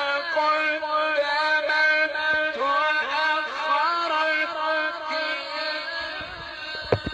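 Melodic Quran recitation by a single voice, drawing out long held notes with ornamented turns in pitch. The voice trails off near the end, where a few sharp clicks follow.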